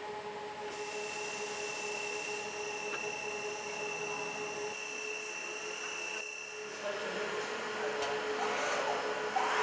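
KARL MAYER Nov-O-Matic automatic sectional warper running, its warping drum turning and winding yarn: a steady machine hum with a thin high whine. The sound changes abruptly about six seconds in to a busier mechanical mix.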